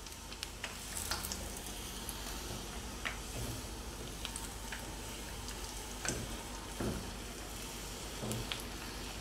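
Hot cooking oil sizzling steadily in a frying pan around a spoonful of flour batter, which is being swirled across the pan bottom with wooden chopsticks to pick up burnt particles and clean the oil. Scattered sharp pops and crackles come through the sizzle.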